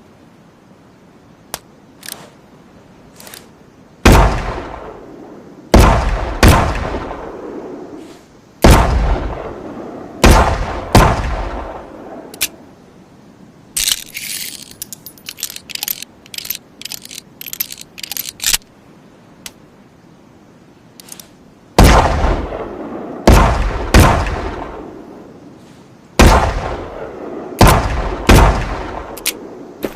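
Revolver firing two strings of about six shots each, every shot trailing off in an echoing tail. A few light clicks come just before the first string, and a rapid run of light metallic clicks and rattles fills the gap between the strings.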